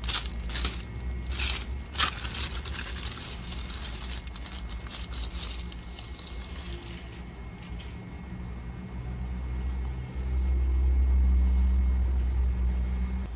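Plastic mailer bag crinkling and being torn open, with sharp crackles in the first couple of seconds, then softer rustling as a non-woven fabric dust bag is pulled out and handled. A low rumble grows louder about ten seconds in.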